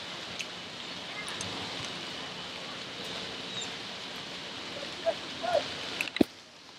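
Steady outdoor background noise with a couple of brief distant shouts about five seconds in, then a single sharp knock just after six seconds.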